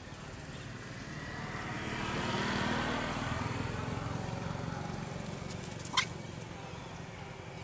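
A motor vehicle passing: engine and road noise swells over about two seconds and then slowly fades. About six seconds in there is one short, high, rising squeak.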